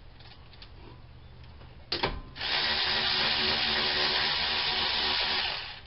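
Milwaukee 3/8-inch cordless electric ratchet running steadily for about three seconds, spinning out the lower 12 mm brake caliper bolt, with a single knock just before the motor starts.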